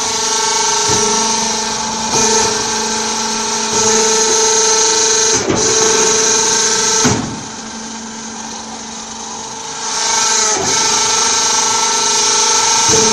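Interlocking clay brick press machine running: a steady mechanical whine made of several tones over a hiss. Sharp knocks come every few seconds as the press works, and the machine drops quieter for about three seconds in the middle.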